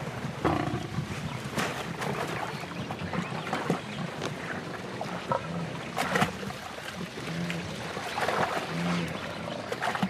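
Lioness growling as she wrestles a wildebeest down by the throat, with repeated thuds and scuffling throughout the struggle.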